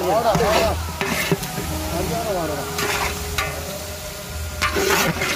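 Metal ladle stirring meat pieces in oil and masala in a large aluminium pot, with the meat sizzling as it fries. The ladle scrapes against the pot in several strokes, with wavering squeaks that rise and fall.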